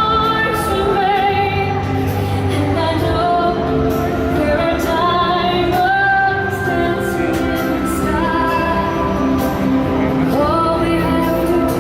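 Show music with a female voice singing a slow, held melody with vibrato over a full, steady accompaniment.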